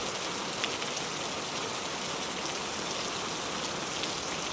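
Steady gentle rain falling, a soft even hiss with the odd separate drop ticking.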